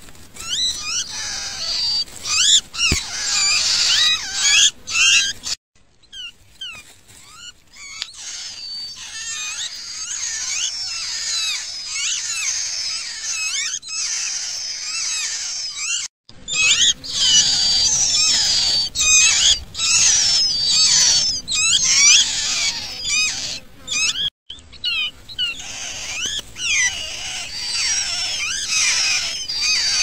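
Nestlings begging: a dense chorus of rapid, high-pitched cheeps and squeaks as the chicks gape for food. It breaks off briefly a few times.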